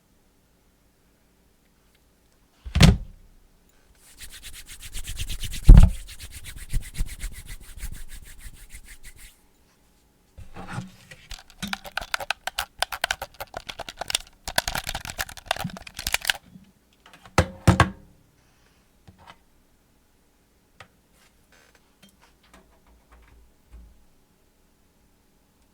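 Mouth noises made by a man: a sharp click, then a rapid rattling buzz lasting about five seconds with a loud knock in it, then a run of quick clicks and smacks, a final double click, and a few faint ticks near the end.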